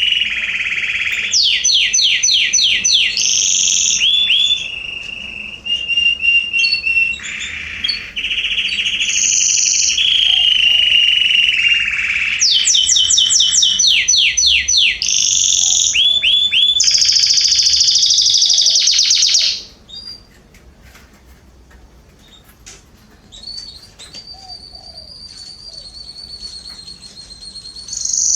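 Domestic canary singing: a loud, rapid song of trills and rolls with sweeping whistled notes. It stops suddenly about two-thirds of the way through, leaving a much fainter, long held whistle near the end.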